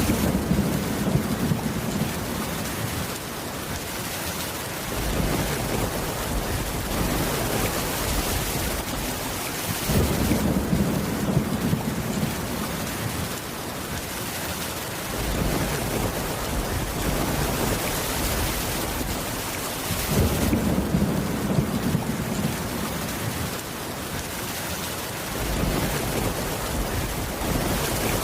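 Steady rain with rolls of thunder: three low rumbles about ten seconds apart, each lasting a few seconds.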